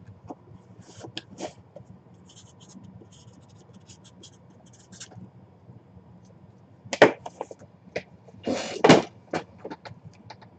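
Cardboard puck boxes being handled on a table: light scratching and scraping, then a sharp knock about seven seconds in and a louder scrape a second or so later.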